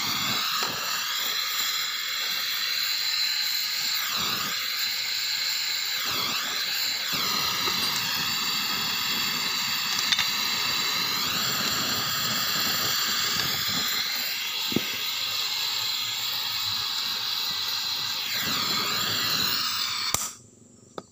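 Gas welding torch flame hissing steadily as it heats a broken aluminium motorcycle footrest bracket for welding, the hiss wavering up and down in tone now and then. The torch is shut off about twenty seconds in, and the hiss stops suddenly with a click.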